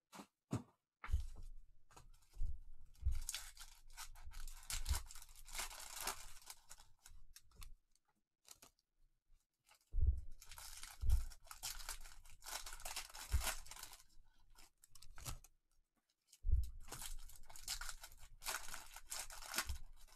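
Clear plastic shrink-wrap on a trading card box being torn and crumpled by hands, a crackly crinkling that comes in three spells with a few soft knocks.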